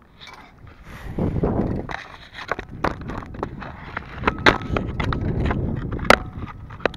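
Handling noises: a run of sharp clicks and knocks over a low rumble, the loudest knock coming near the end.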